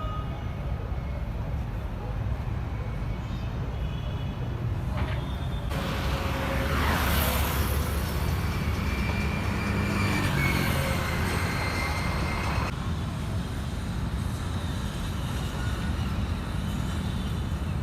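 Steady road traffic rumble. About six seconds in, a vehicle passes close by, louder and hissier for several seconds, and its sound falls away by about thirteen seconds.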